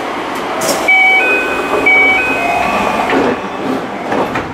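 Electronic train chime sounding a two-note figure twice, about a second apart, while the Tsukuba Express train stands at the platform. It is typical of the door-closing warning before departure. A short hiss comes just before it and a few knocks follow.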